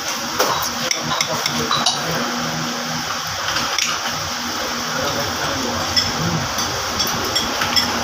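Metal fork and spoon clinking and scraping against a plate in scattered light taps while eating, over a steady background hiss.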